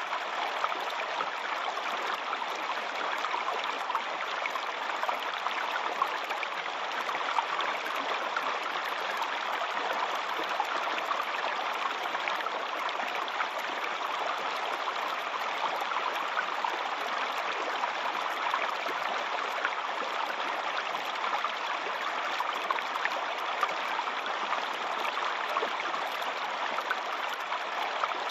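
Waterfall: water falling and splashing in a steady, unbroken rush of noise.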